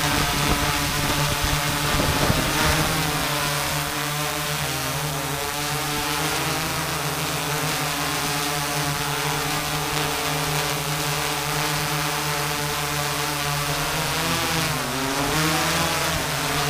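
Multirotor drone's motors and propellers spinning steadily, a hum made of several pitches. Near the end the pitch dips and climbs again as the throttle changes.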